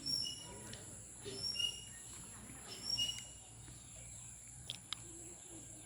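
A bird repeating a short two-note call, a high note dropping to a lower one, about every second and a half, over a steady high-pitched drone of insects.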